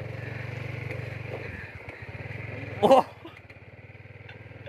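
Small motorcycle engine running with a steady fast low pulse, easing off about a second and a half in as the rider slows on a rough grassy path. A short loud sound cuts in about three seconds in.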